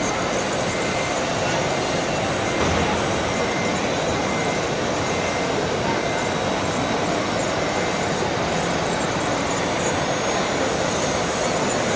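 Steady din of a busy exhibition hall: many voices blending into a hubbub over a constant rushing noise, without any single distinct event.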